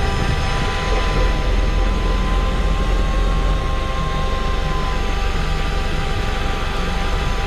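Fishing boat's engine running steadily: a continuous low drone with a high whine held over it.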